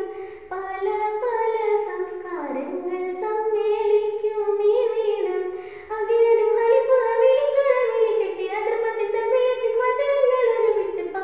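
A girl's voice singing a slow melody in long, held notes that slide from one pitch to the next.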